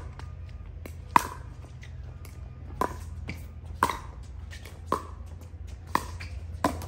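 Pickleball paddles hitting a plastic pickleball back and forth in a rally: about seven sharp hits roughly a second apart, each with a short ring. A steady low hum runs underneath.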